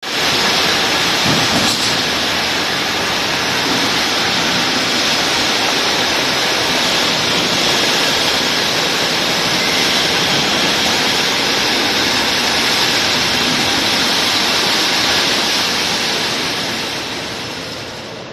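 Steady, even rushing noise of running factory machinery, with no beat, easing off over the last couple of seconds.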